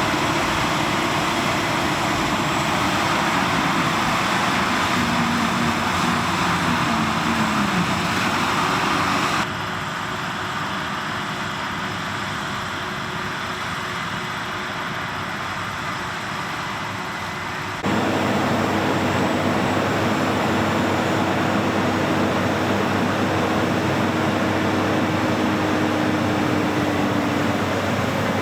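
Tractor and grain cart running while wheat is unloaded into a truck: steady engine and machinery noise. Hard cuts about 9.5 s and 18 s in change the sound, with a quieter stretch between them and a steady engine note in the last part.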